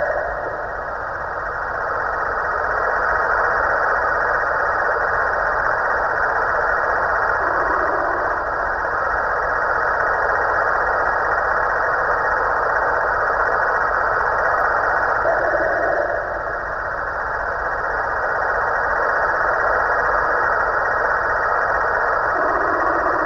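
Snoring from a Halloween pumpkin decoration: a continuous rumbling snore that eases briefly between breaths about every seven to eight seconds.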